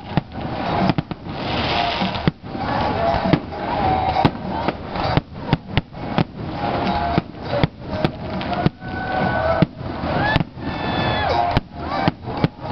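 Aerial firework shells bursting overhead in a rapid, irregular series of sharp bangs, dozens in a few seconds, over a continuous din.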